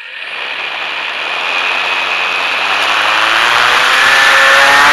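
Electric motor and propeller of a HobbyZone Super Cub RC plane spinning up from rest for takeoff, heard from a camera mounted on the plane close to the propeller. The whine over a rushing hiss grows steadily louder, and its pitch rises over the last couple of seconds as the throttle comes up.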